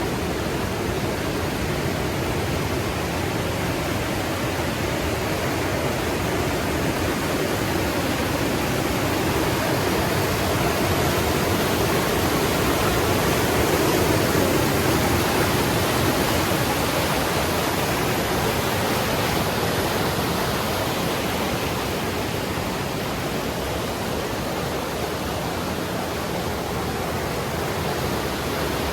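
Creek water rushing over rocks: a steady rush that swells a little about halfway through.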